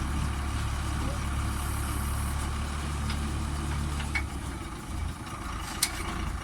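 Combine harvester engine running steadily with a low hum that drops away about four seconds in, followed by a couple of sharp clicks.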